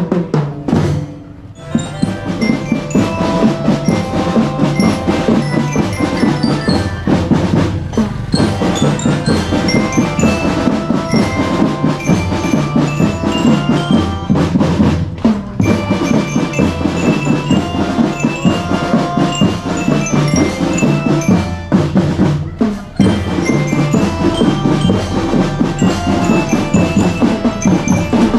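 School drum band playing a march tune: bell lyres (glockenspiel) carry the melody over a steady beat of snare and bass drums. The band stops briefly about a second in, then plays on.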